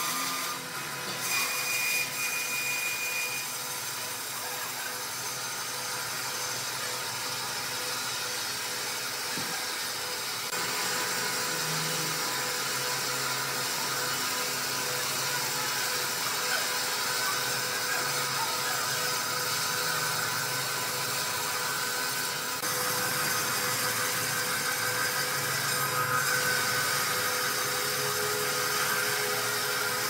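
Horizontal band sawmill cutting through a large log: the blade and its drive run with a steady hiss of sawing and several held tones, the sound shifting slightly about two-thirds of the way through.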